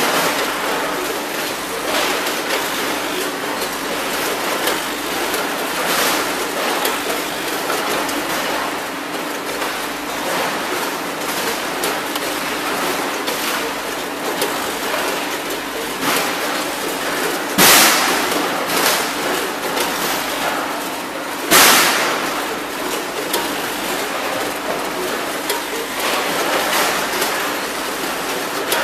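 Multihead combination weigher handling raw shrimp: a steady machine hiss over a faint low hum, broken by the clatter of hopper gates opening and shrimp dropping into the chutes. The two loudest drops come close together about two-thirds of the way through.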